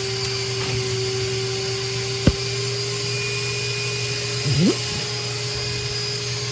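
Vacuum cleaner running steadily while picking up damp dirt, with one sharp click about two seconds in and a short rising sound about four and a half seconds in.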